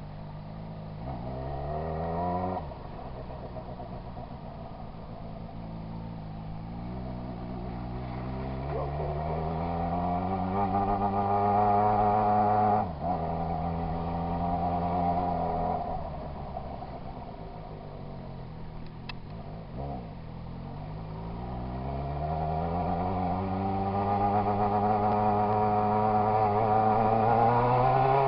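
Yamaha XJ6 600 cc inline-four motorcycle engine being run up hard. Its pitch climbs briefly, drops abruptly, then climbs slowly for about ten seconds before dropping abruptly again. After that it falls away for a few seconds and climbs once more to a high pitch that drops abruptly right at the end.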